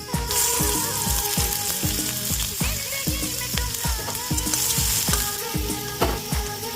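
Food sizzling as it fries in hot oil, under background music with a steady beat.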